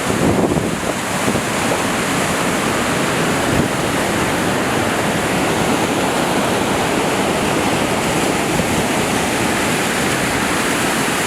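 Waterfall and rapids rushing: a loud, steady roar of falling water, with a few stronger low bumps in the first second.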